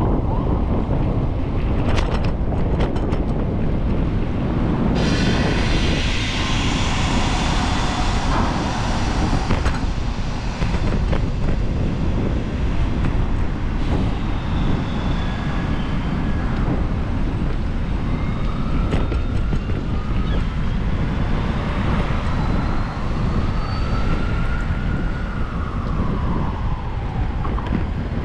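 Wind rumbling on the microphone of a camera riding on a moving bicycle, over city traffic. A few seconds of high hiss come in about five seconds in, and faint whistling tones rise and fall near the end.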